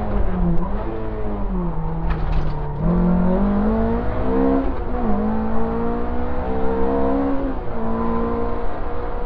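Opel Ascona 400 rally car's four-cylinder engine heard from inside the cabin at full stage pace, revving up and down. The pitch climbs, drops sharply as the throttle lifts or a gear changes, then climbs again, with a brief dip in the middle where a gear is changed.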